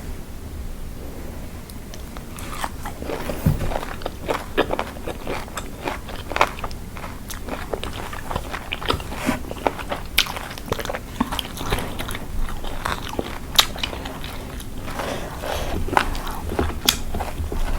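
Close-miked eating sounds of spicy lime salad being bitten and chewed: a dense run of sharp crunches and clicks that starts about two and a half seconds in.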